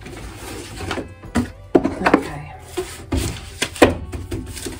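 Greeting cards and envelopes being handled and sorted: paper rustling and sliding, with several sharp taps and knocks as cards and the card box are set down on a wooden desk.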